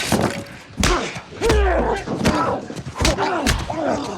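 Film fight sound effects: a rapid series of heavy slams and thuds of blows and bodies, with short effortful grunts between them and a deep thud near the middle.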